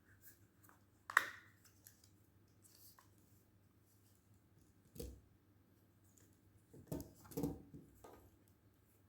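Handling noise from a tripod being set up: a few sharp clicks and knocks about a second in, near the middle, and a short cluster near the end, with quiet between.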